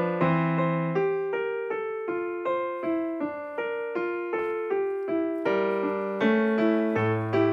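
Background piano music: single notes and chords struck at a steady pace, about three a second, each fading after it is struck.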